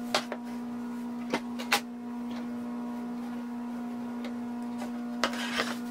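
Acacia board being handled on a table saw's top: a few light wooden knocks in the first two seconds as it is set down, and a brief scrape about five seconds in as it is slid against the fence. A steady machine hum runs underneath.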